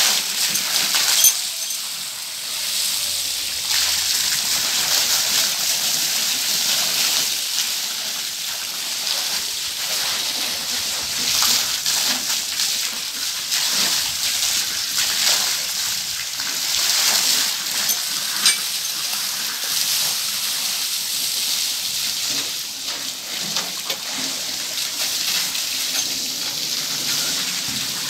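Water jetting from a hose onto the bed of a farm trailer: a steady splashing hiss that swells and eases as the spray moves about.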